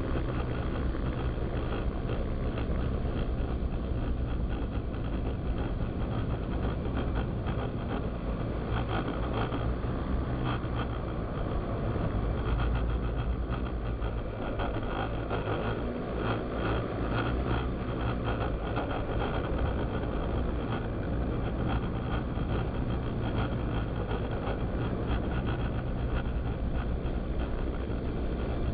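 Walkera QR X350 PRO quadcopter's motors and propellers running steadily in flight, heard through the onboard camera's microphone with a deep, fluttering wind rumble over it.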